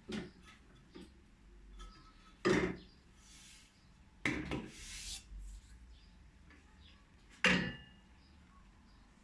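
A few separate knocks and clatters of objects being handled: sharp ones about two and a half seconds in and near the end, with a longer scraping rattle around the middle.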